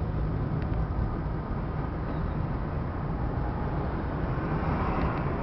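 Steady engine and road noise from inside a moving car's cabin: a low rumble with a fainter hiss above it.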